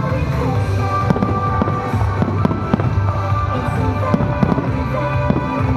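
Fireworks going off in quick succession, many sharp bangs a second, over loud music played along with the show.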